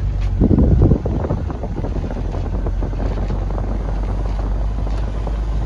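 Wind rushing over the microphone along with the road and engine rumble of a moving camper van, loudest for about half a second near the start.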